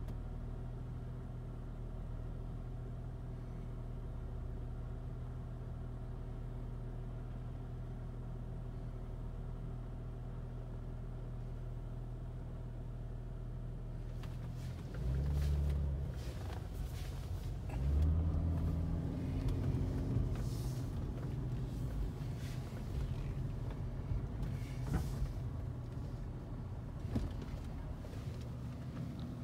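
Steady low hum of an idling engine. About halfway through come two louder low rumbles a couple of seconds apart, followed by scattered light knocks.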